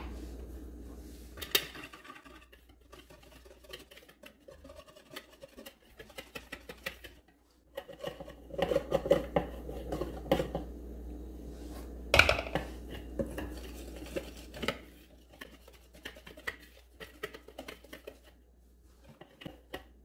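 Wire whisk stirring and scraping batter in a plastic mixing bowl as flour is added, with irregular clicks and taps of the whisk against the bowl. The stirring is busiest about halfway through.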